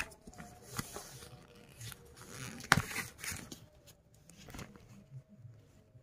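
Clear plastic bag of toy animal figures crinkling as it is handled and opened, with scattered short crackles and a few sharp clicks, the sharpest a little under three seconds in.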